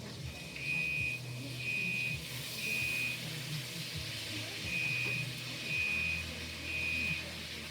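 Smoke alarm sounding its evacuation signal: three high beeps of about half a second each, a pause, then three more, set off by smoke from cooking bacon.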